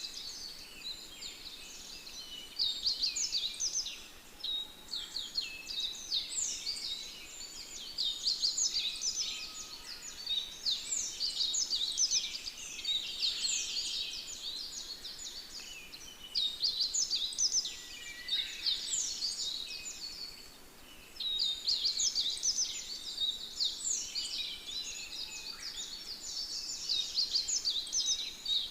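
A chorus of many birds chirping and calling at once: dense overlapping short, quick falling notes, thinning briefly twice.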